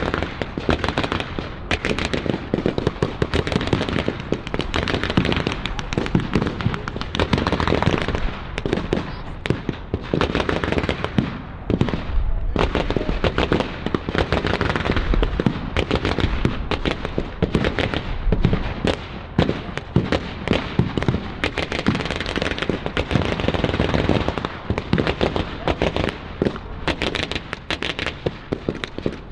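Sustained battle gunfire from reenactors' blank-firing weapons: rapid shots crackling almost without pause, with a few deeper booms in the middle.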